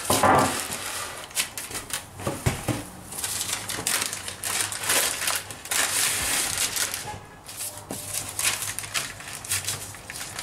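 Baking paper rustling and crinkling in irregular bursts as a sheet of dough is rolled up in it, with a few light knocks.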